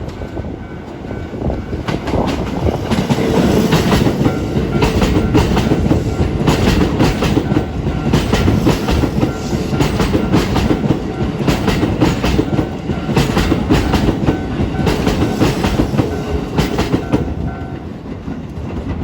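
Keisei 3700-series electric commuter train passing over a level crossing, its wheels clattering in a rapid string of clicks over the rail joints and crossing. The train builds up about two seconds in and fades near the end, with the crossing's warning bell ringing behind it until near the end.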